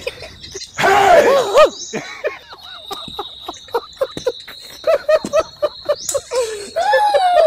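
Piglets squealing in a quick run of short high squeals. One louder, longer scream comes about a second in and another near the end. A thin, steady high whine runs underneath through the middle.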